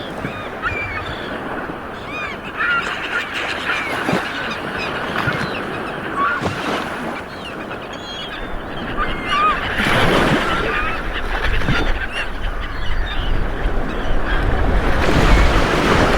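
Sea waves washing onto a shore, swelling loudest about ten seconds in and again near the end, with many birds calling in short, sliding notes throughout.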